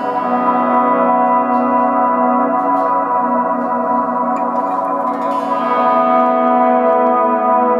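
Electric guitar chords played as volume swells through a Neunaber Stereo Wet reverb pedal in its modulation mode, held as a long, shimmering wash of modulated reverb. A new, brighter chord swells in about five and a half seconds in.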